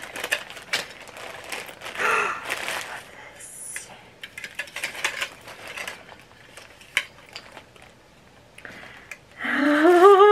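Packaging rustling and crinkling as items are unwrapped by hand, with scattered small clicks and light knocks. A short vocal sound comes near the end.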